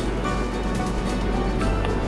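Background music playing steadily, with no other sound standing out.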